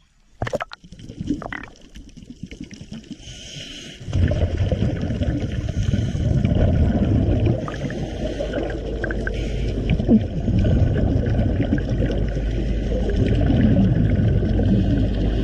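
Underwater bubbling from a scuba diver's Cressi regulator as he breathes out, heard through the camera's housing as a dense, low noise. It gets suddenly loud about four seconds in, as the camera goes under the surface.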